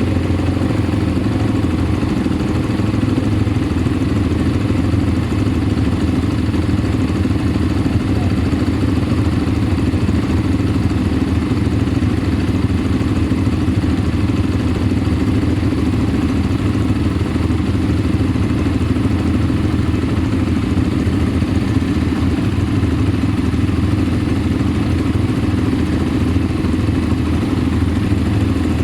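ATV engine running steadily while being ridden.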